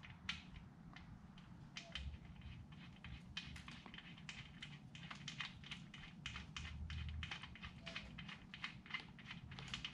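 Faint, quick, irregular clicks and ticks of a Saddlemen ATAB security seat screw being turned in by hand, the metal screw and bracket clicking under the fingers, growing busier a few seconds in.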